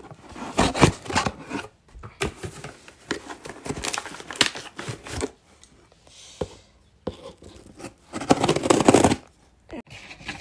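Parcel packaging being opened by hand: a run of irregular sharp snips and rips, with a short pause in the middle and the loudest stretch near the end.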